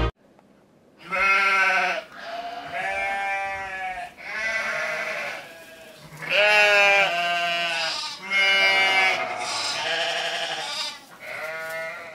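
A run of about seven wavering, bleat-like calls, each one to two seconds long, starting about a second in after a brief quiet.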